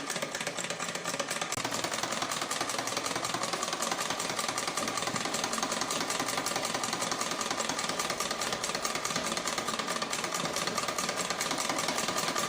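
Singer sewing machine running at a steady fast speed, its needle stitching in rapid, even strokes while darning a tear in cloth.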